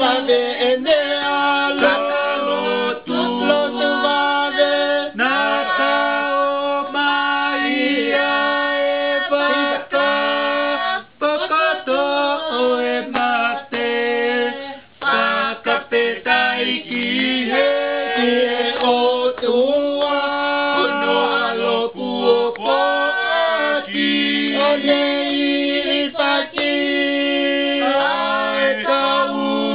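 A small group of young male and female voices singing a song together in Tongan, several voices at once, with brief breaks in the singing about eleven and fifteen seconds in.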